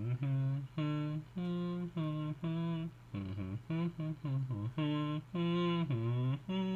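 A man humming a melody along to a song, in short phrases of held notes, over a steady low hum.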